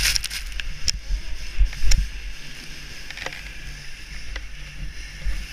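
Wind buffeting a helmet-mounted action camera's microphone during a fast tow over snow: a heavy low rumble that gusts louder about two seconds in, over a hiss of snow, with a few sharp ticks.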